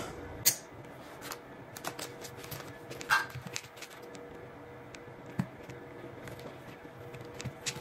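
Quiet handling noises on a countertop: scattered light taps and clicks as a wooden skewer is pushed through a cheese slice and a metal cookie cutter is picked up, over a faint steady hum.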